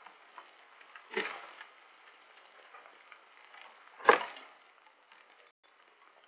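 Hailstones falling and striking near the doorbell camera: a faint steady patter, with two sharp knocks about a second in and about four seconds in, the second the louder.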